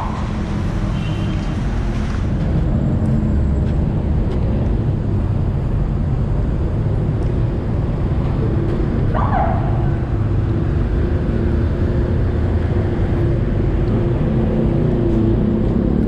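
Steady rumble of heavy city road traffic: car, bus and truck engines running in slow, congested lanes below, with one short higher-pitched sound about nine seconds in.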